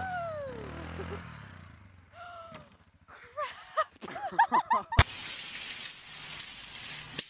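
A quad bike's engine runs as the machine tips over onto its side in snow, with a falling yell at the start and short shouts about three to five seconds in. About five seconds in comes a sharp click, then a steady hiss.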